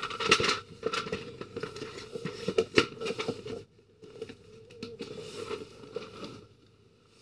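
Irregular rustling and crinkling with many small clicks, dense for the first three and a half seconds, then sparser, dying away near the end.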